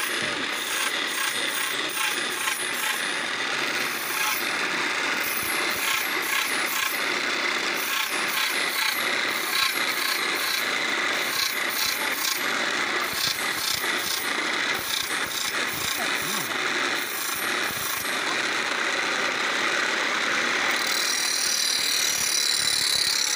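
Pedal-driven grinding wheel sharpening a steel sickle (hansua) blade: a continuous rasping grind of metal held against the spinning wheel.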